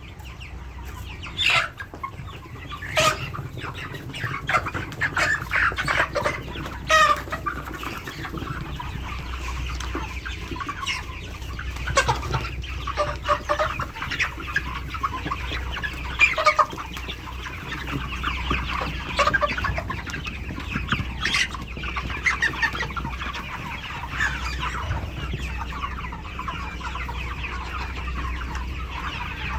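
A house full of 42-day-old broiler chickens calling and clucking together in a dense, continuous chorus, with louder single calls standing out every second or two, over a steady low hum.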